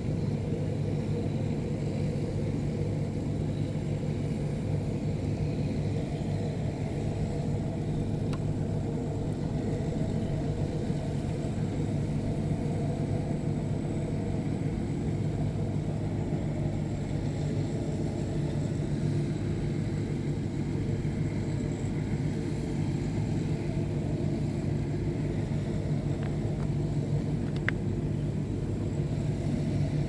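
Rice combine harvester's engine running steadily at constant speed, a low, even drone.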